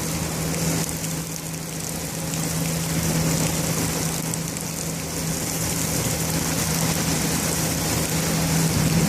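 Heavy thunderstorm rain falling steadily, an even hiss, with a steady low hum running underneath it.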